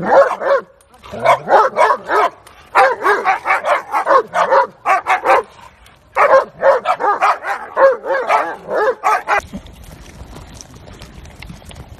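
A husky barking and yowling in rapid strings of short, bending calls, in several bursts with brief pauses between them. It cuts off suddenly about nine seconds in.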